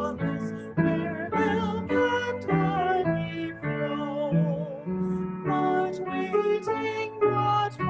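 A hymn sung with piano accompaniment, the held notes of the voice wavering with vibrato.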